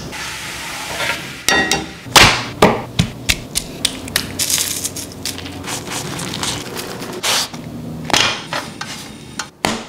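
Onions sizzling in oil in a pan, then a series of sharp knocks and clinks of a spoon and kitchen utensils, with rustling as a flour tortilla is rolled into a burrito near the end.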